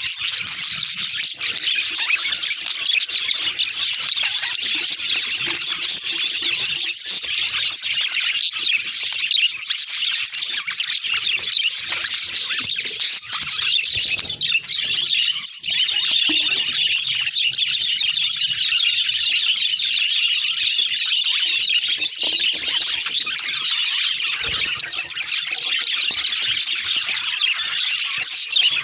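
Budgerigars chattering and chirping continuously, a dense run of high, quick twitters and squeaks.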